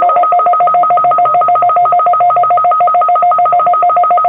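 Touch-tone (DTMF) signalling tones on a radio broadcast: a rapid, even string of identical two-note beeps, about ten a second.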